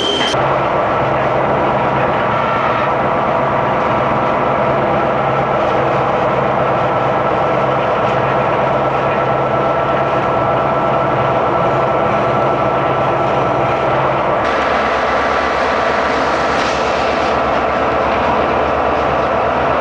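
Diesel-hauled passenger train running steadily on the track: the even drone of the locomotive's engine with the rumble of the cars, and a high wheel squeal that cuts off just after the start.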